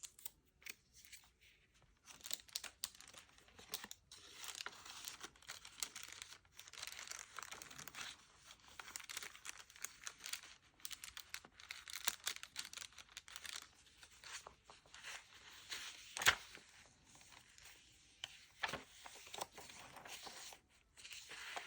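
Paper being handled: the crunchy crinkling and rustling of journal pages and tucked paper ephemera being turned and shifted, with irregular small crackles and one sharper snap about sixteen seconds in.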